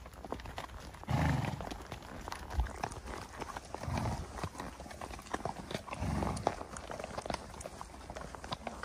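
Ridden horses' hooves striking a gravel track in a quick, uneven run of clip-clops as the horses move at pace, with a few louder low, muffled sounds about two seconds apart.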